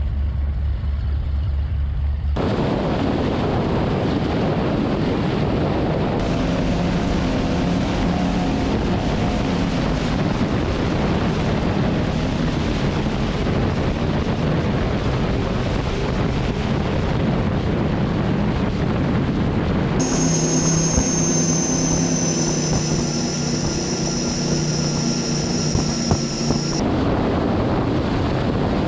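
Skater catamaran powerboat running at speed: a steady engine drone under a loud rushing noise. The sound changes abruptly several times.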